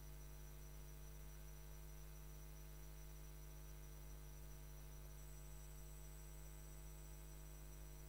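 Near silence: a steady low electrical hum with many evenly spaced overtones.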